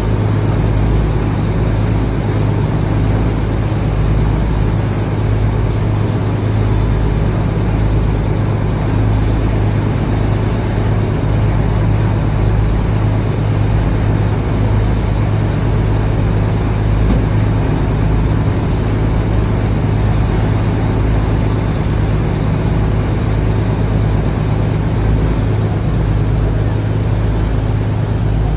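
Ferry's engine running with a steady, loud low drone, a constant hum under an even wash of noise and a faint high whine on top.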